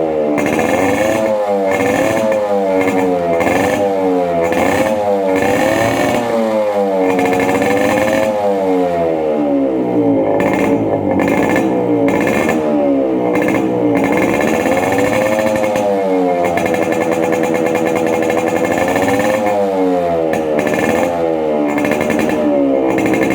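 Yamaha RX-100's two-stroke single-cylinder engine being revved over and over, its pitch rising and falling every second or two, then held at a steady pitch for a few seconds about two-thirds of the way through.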